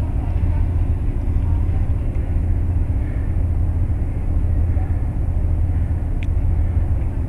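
Steady low rumble, with a faint click about six seconds in.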